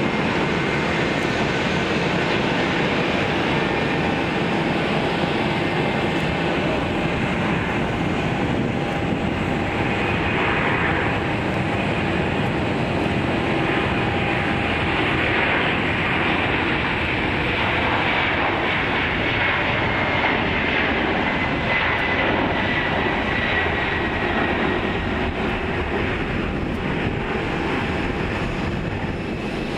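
Boeing 767's twin turbofan engines at takeoff thrust during the takeoff roll, a loud, steady jet engine noise. Through the middle of the roll a high whine slowly falls in pitch as the airliner passes.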